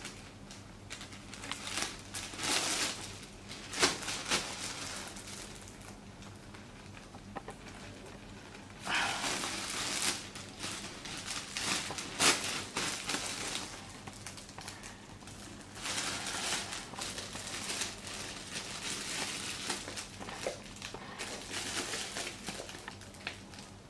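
Thin clear micro-perforated CPP (cast polypropylene) plastic bag crinkling as it is handled, opened and pulled hard between the hands to test its strength, in bursts with quieter pauses between and a couple of sharper snaps of the film.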